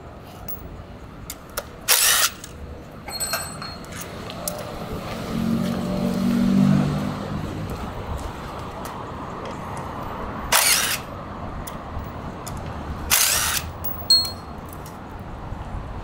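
Cordless DeWalt power driver run in several short bursts a few seconds apart on the motorcycle's front fork and brake-caliper bolts. A low hum swells and fades in the middle.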